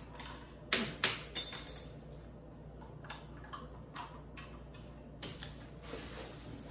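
Light clicks and taps from handling an electric kitchen scale and its packaging on a countertop, a dozen or so scattered sharp knocks, the loudest in the first second and a half.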